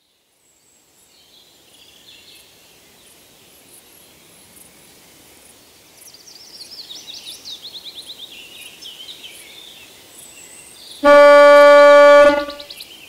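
Birds chirping over quiet outdoor background, then about eleven seconds in a single loud, steady car horn honk lasting just over a second.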